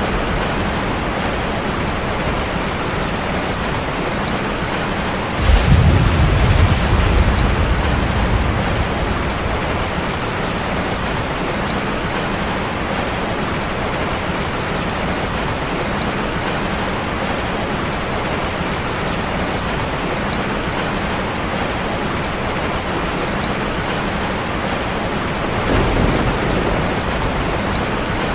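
Steady, heavy rain, with a roll of thunder about five seconds in that lasts a few seconds, and a fainter rumble of thunder near the end.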